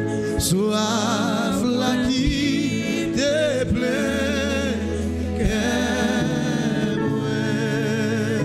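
Live gospel worship singing: a woman's voice with wide vibrato, sung into a microphone over steady sustained low accompaniment, with a few sharp hits.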